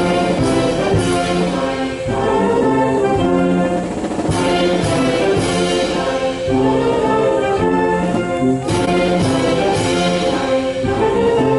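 Band music with brass and voices singing, in slow sustained chords that change about every second.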